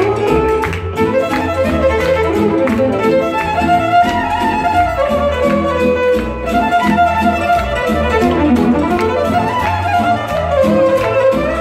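Live violin playing a wavering dance melody over a steady bass backing beat, with guests clapping along.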